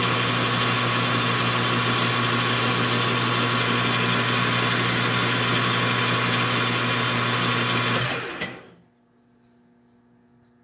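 Metal lathe running steadily with a hum and whine while a hand file smooths the radius on a small spinning tool-steel pin at first; about eight seconds in the lathe is switched off and stops within a second, with a click.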